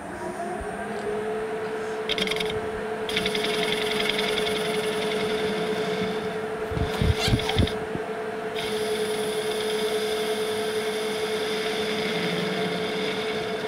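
Metal lathe spinning up, its motor whine rising in pitch over the first second and then holding steady, while the tool faces the end of a steel hydraulic cylinder rod. A higher cutting hiss comes in about two seconds in and drops out twice as the cut goes on, with a few clicks near the middle.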